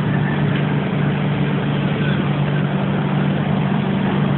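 An engine running steadily at idle: a constant low drone with no change in pitch or loudness.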